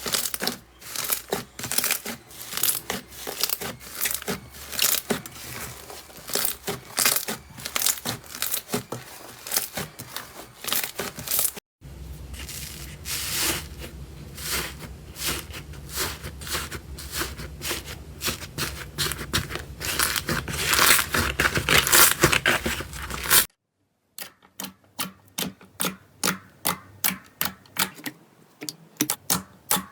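Slime being squeezed and pressed by hand, giving dense, crisp crackling and popping. The sound cuts off abruptly twice, and the last part is a run of evenly spaced clicks, about two a second.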